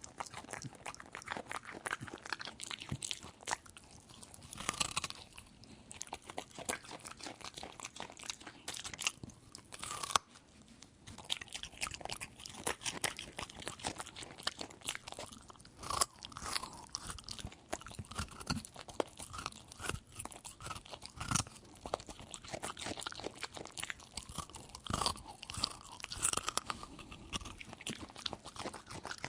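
A dog eating, crunching and chewing its food with quick, irregular bites and wet mouth sounds, close up.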